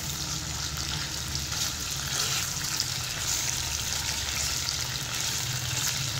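Beef koftas shallow-frying in hot oil in a non-stick pan: a steady sizzle.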